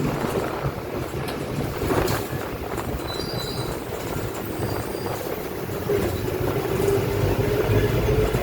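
Onboard ride noise of a Marcopolo Sênior Midi bus on an Agrale MA 15.0 chassis: steady low drivetrain and road rumble. About six seconds in a whine comes in and grows louder toward the end, the differential growl that this bus has, called very loud.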